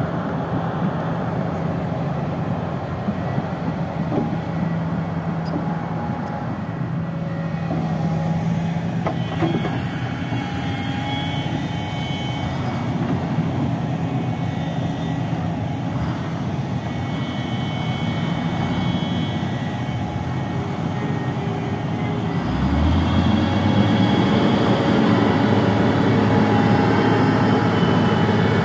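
Heavy diesel engines of a SANY crawler excavator and a dump truck stuck in mud, running under load as the excavator bucket pushes the truck. About three-quarters of the way through, an engine revs up. The sound then becomes louder and holds a higher note as the truck drives out under the push.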